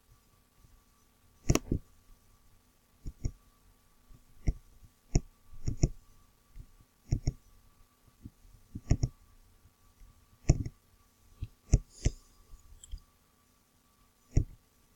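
Computer mouse clicking: sharp single and double clicks at irregular intervals, over a faint steady hum.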